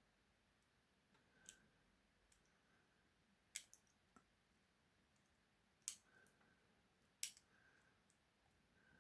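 Faint, sharp metallic clicks, a few at a time and spread a second or more apart, as a lever pick and tension wire work the levers inside a Master Lock lever padlock during picking.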